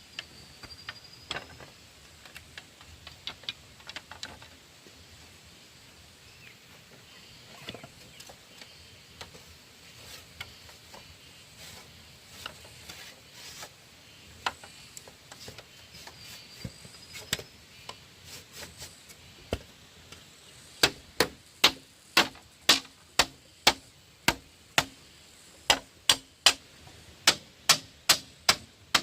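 Scattered knocks and taps, then a steady run of sharp strikes about two a second, starting about two-thirds of the way through: a hand tool striking wood, typical of work on a wooden coop.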